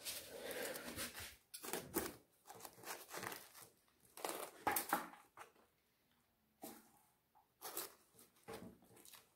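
A hand digging into loose soil and pressing a potato into it inside a woven plastic grow bag: irregular scrapes and rustles of soil and crinkling sack, with a short pause a little past halfway.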